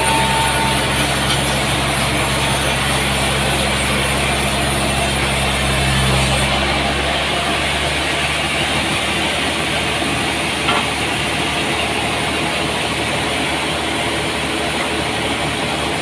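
Sawmill machinery running with a steady, loud mechanical noise. About seven seconds in, a low hum and a high hiss drop away while the rest of the noise carries on, and a single click comes near the end.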